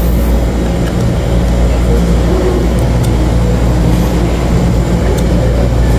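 A loud, steady, low rumble of background noise, with a few faint short tones in the middle.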